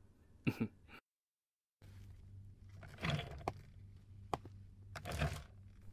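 Quiet room tone with a low steady hum, broken by a few faint knocks and shuffles as a man pulls out a chair at a meeting table and sits down. The sound drops out completely for under a second near the start.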